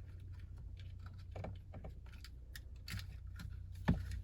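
Small plastic clicks and taps as an LED door-handle trim light and its wiring connector are handled and pushed into place, with one sharper click near the end, over a low steady hum.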